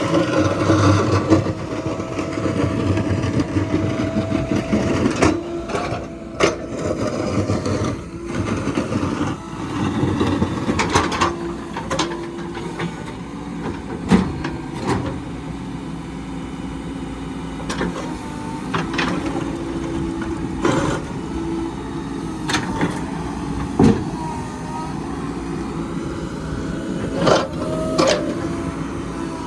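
Heavy road-construction machinery running steadily, an engine hum with frequent sharp clanks and knocks.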